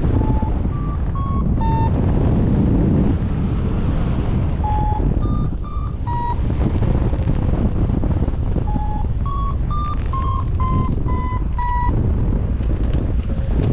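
Paragliding variometer beeping in three short runs of about two beeps a second, each beep a little higher or lower in pitch, the climb tone of a glider in rising air. Heavy wind noise on the microphone runs underneath.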